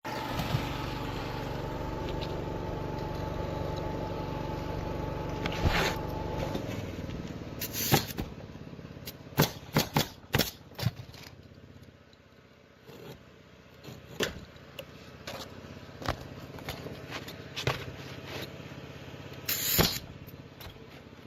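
A motor runs steadily and dies away about six seconds in, followed by a scattering of sharp knocks and clicks.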